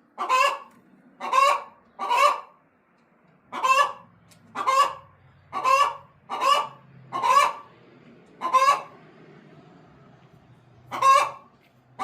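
A goose honking over and over, about ten loud, separate honks roughly a second apart, with a longer pause near the end.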